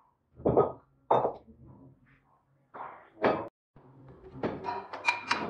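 A few short, dull knocks and thumps from handling, then near the end a quick run of ringing strikes, about four a second.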